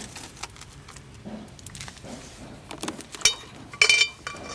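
A dog's metal chain leash clinking and jangling, with several sharp, ringing clinks in the second half.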